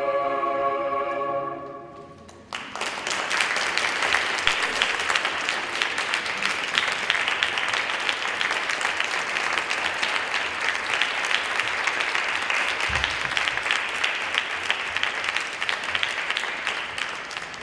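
A mixed choir's closing chord held and fading out, then audience applause starting about two and a half seconds in, steady for many seconds and dying away near the end.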